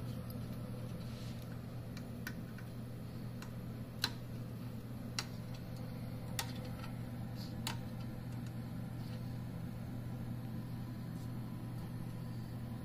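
Steady low machine hum, with about five light clicks or taps spread through it; the sharpest comes about four seconds in.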